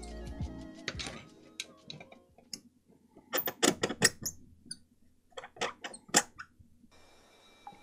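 A string of sharp, small clicks and taps, scattered at first and then in two quick bunches about three and a half and six seconds in, from hands handling a small switch circuit board from a Logitech G305 mouse.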